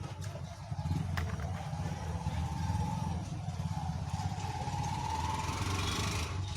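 A motor running with a steady, fast-pulsing low rumble and a wavering whine that rises and then cuts off suddenly near the end; a couple of sharp clicks in the first second or so.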